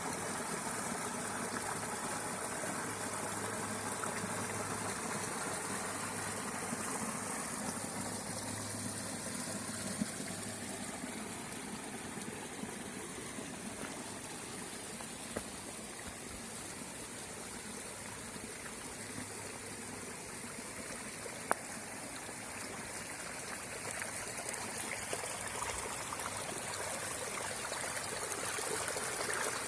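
Small creek flowing steadily over stones, a continuous babbling trickle of water, with a few brief sharp clicks, three times.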